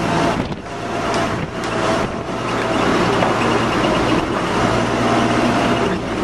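Shuttle bus on the move, heard from inside: steady engine hum and road noise.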